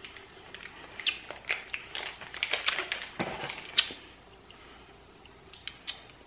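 Thin plastic snack bag crinkling and crackling as it is twisted shut and handled, with the rustle and knock of a small cardboard box being picked up. The crackles come thick for a few seconds, then thin out to a few clicks.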